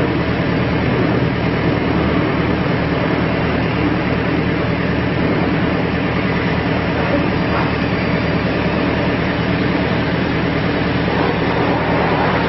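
Diesel engine of a JCB 930 rough-terrain forklift running steadily while its hydraulic mast raises and lowers the forks.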